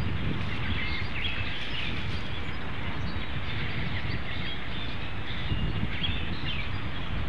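Scattered short chirps of small songbirds over a steady low rumble.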